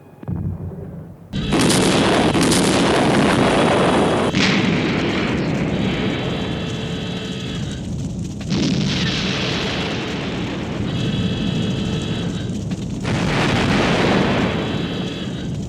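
A series of heavy explosion sound effects. A big blast about a second in is followed by a fresh boom roughly every four seconds, each dying away slowly. Between the blasts a short pitched alarm-like tone sounds.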